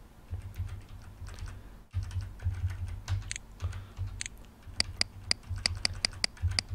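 Short, sharp clicks from Kodi's menu navigation sounds as the selection moves through the settings, the GUI sound pack being switched to AppTV UI Sounds. A few scattered clicks come first, then from about five seconds in a regular run of near-identical clicks, about three a second.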